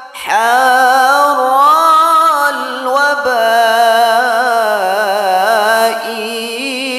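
A man's solo voice singing a slow, melismatic Arabic dzikir chant, one long drawn-out phrase with wavering ornaments that dips briefly about three seconds in.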